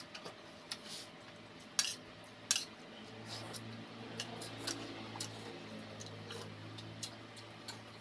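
Metal cutlery clinking and tapping against a plate or bowl in a series of sharp, irregular clicks, as food is served or eaten. A faint low hum runs underneath from about three seconds in.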